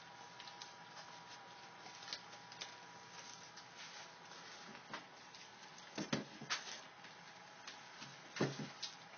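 Young puppies nursing: a steady run of small wet clicks and smacks from suckling, with two louder clusters of knocks and grunts about six and eight and a half seconds in.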